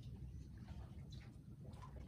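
Small waves lapping against a wooden dock, with many small irregular splashes and ticks, over a steady low rumble of breeze on the microphone.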